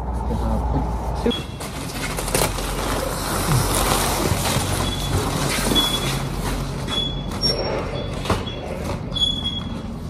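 Foil-faced panels being handled on a pallet: a rustling, crinkling hiss with scattered knocks, and brief thin high squeaks toward the end.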